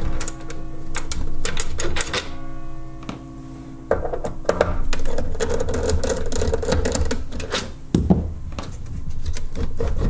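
Handling noise from taking apart a server midplane assembly: clicks and rattles of metal and plastic parts as screws are worked and the board is shifted, with a sharp knock about eight seconds in. A faint steady hum runs underneath.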